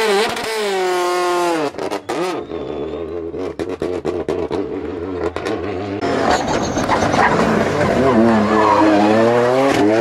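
R5 rally cars' turbocharged four-cylinder engines at a hairpin: the first engine falls in pitch as the car brakes and shifts down, followed by a run of sharp crackles and pops. From about six seconds in, a second car's engine revs hard, its pitch rising and falling through the gear changes as it accelerates out of the bend.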